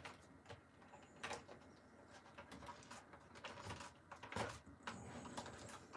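Faint handling noises of a toy figure being pressed back into its cardboard display box: light rustling and scraping, with a couple of sharp clicks, one a little over a second in and a louder one about four and a half seconds in.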